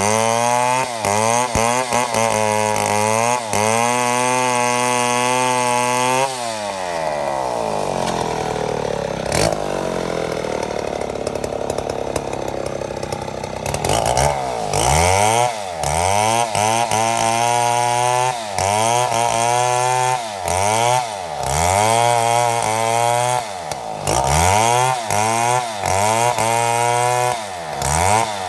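Chainsaw milling a mahogany log. It runs at high revs, drops to a lower speed about six seconds in, and from about fourteen seconds the revs rise and fall roughly once a second.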